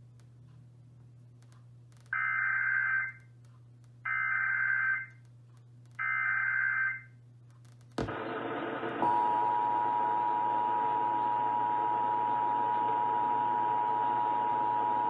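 Emergency Alert System tones: three SAME header data bursts, each about a second long with a second's gap, encoding the alert (a tornado warning) that follows. After a click about eight seconds in, the steady two-tone EAS attention signal starts about a second later and holds, with a hiss behind it.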